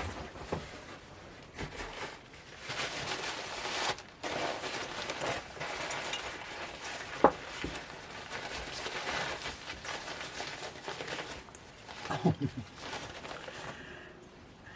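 Packing paper rustling and crinkling as wrapped shakers are unwrapped by hand, with a sharp click about seven seconds in and a few light knocks near the end.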